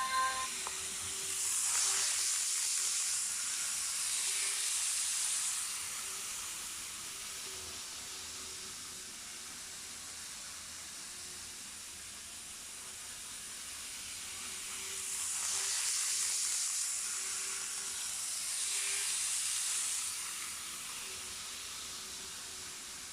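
A model electric train running on its track, a steady high hiss with a faint motor whine. It swells twice, about two seconds in and again about fifteen seconds in, as the train passes close by.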